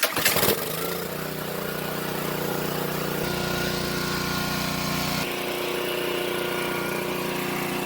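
Honda GCV190 single-cylinder small engine on a pressure washer running steadily, left to burn through its tank of old gas to clear the carburettor.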